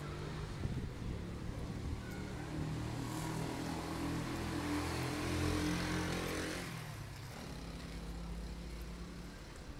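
BMW M3 E92's 4.0-litre V8 running at idle, a steady low note, swelling louder for a few seconds around the middle and then settling back.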